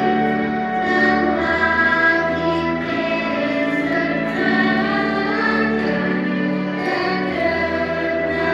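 Choir singing long held notes as part of the show's musical soundtrack.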